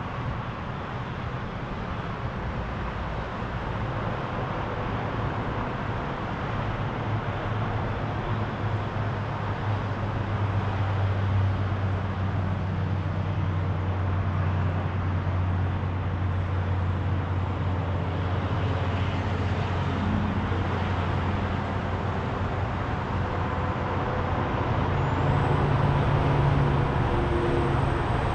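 Continuous road traffic noise with the low engine drone of heavy vehicles: one builds about eight seconds in and fades by about twenty seconds, and another comes up near the end.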